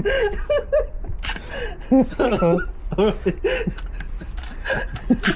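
Men's voices laughing and chuckling, with a few sharp clicks in between.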